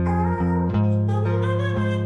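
Instrumental outro music: held chords that change about every half second.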